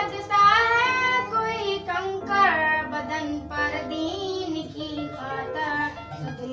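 A boy singing solo without accompaniment, one melodic line in phrases with held notes and gliding, ornamented turns.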